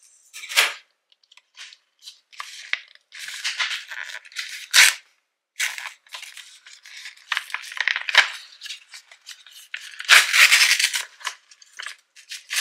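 A taped-up paper envelope being torn open by hand: a run of separate rips and paper crinkles with a few sharp snaps, the longest and loudest tearing about ten seconds in.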